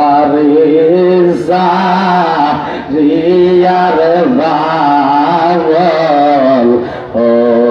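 A man singing an Islamic devotional song in Bengali into a microphone, in long drawn-out notes that waver and slide, phrase after phrase with short breaks for breath.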